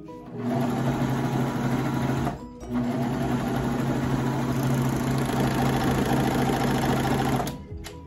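Baby Lock Vibrant serger running at sewing speed as fabric is fed through it. It stops briefly a little over two seconds in, starts again, and stops near the end.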